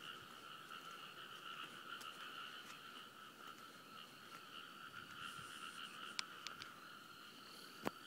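A faint, steady chorus of many frogs calling together. A few sharp clicks come near the end.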